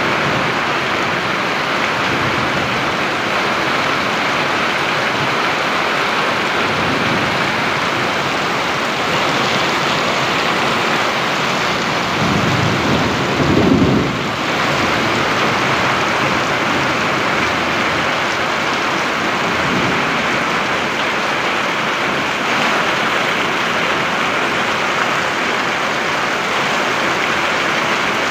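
Steady, dense hiss like heavy rain, with a low rumble like distant thunder swelling about halfway through.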